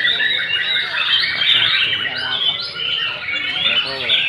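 Several white-rumped shamas (murai batu) singing at once, a dense, unbroken chorus of fast overlapping whistles, chirps and trills laced with mimicked calls of other birds, the full-repertoire song that contest birds are judged on.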